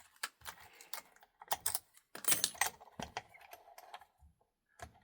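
Key and lock being handled: an irregular run of small metallic clicks and rattles.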